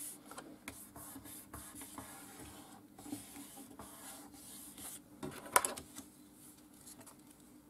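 White cardstock rubbing and sliding under hands on a cutting mat, with small paper clicks. About five and a half seconds in there is a louder sharp crackle as the card is folded over.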